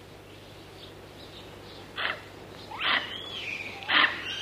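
A monkey giving three short, sharp calls about a second apart, the middle one rising into a squeal, after a couple of seconds of faint high chirps.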